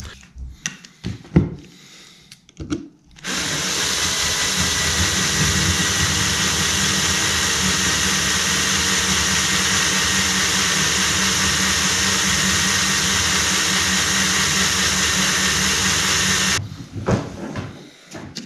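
Cordless drill running at a steady speed for about thirteen seconds, boring out a rivet that holds the plastic halves of a tape-recorder toggle switch together. It starts a few seconds in and cuts off abruptly, with light handling knocks and clicks before and after.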